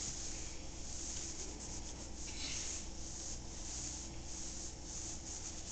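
Wet rag wiping a refrigerator door, soft swishing rubbing strokes repeated about twice a second.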